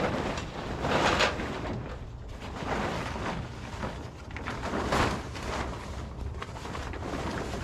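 Plastic tarp rustling and crinkling as it is pulled off a large machine, loudest in two swells about one second in and about five seconds in.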